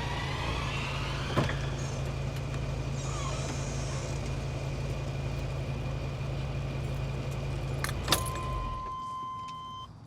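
Car engine idling with a steady low hum, with a sharp click about a second and a half in and another about eight seconds in; the engine then shuts off and a steady electronic chime tone sounds briefly.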